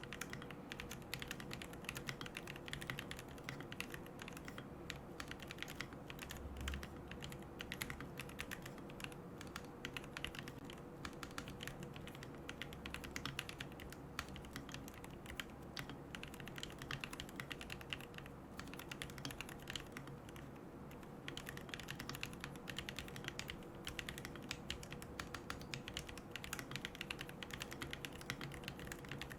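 Continuous typing on a mechanical keyboard with Gateron Moon Landing switches, a carbon plate, MilkyWay Poker keycaps and no foam: a quick, uneven run of keystroke clacks.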